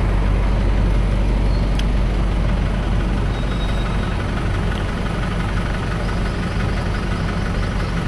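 Engine of a truck-mounted power generator running steadily with a low, even hum.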